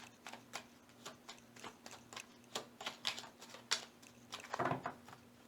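A deck of Lenormand cards being shuffled by hand to draw a card: a quick, irregular run of light card clicks and flicks, with a fuller rustle of cards near the end.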